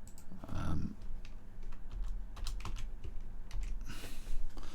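Typing on a computer keyboard: a run of uneven key clicks over a low electrical hum.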